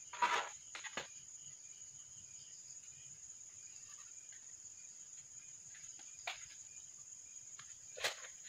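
Wire being wound around a plastic balloon-pump tube to coil it into a spring: a few light clicks and scrapes, the loudest just after the start, again about a second in, around six seconds and near the end. A steady high-pitched drone continues in the background.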